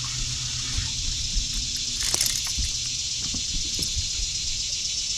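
Water splashing and sloshing beside a fishing boat as a hooked largemouth bass is fought in close to the boat, with small knocks and a low steady hum that fades about two seconds in.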